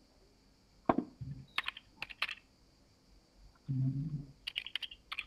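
Typing on a computer keyboard: two quick runs of keystrokes, about a second and a half in and again near the end. A sharp knock comes just before the first run and a short low hum around the middle.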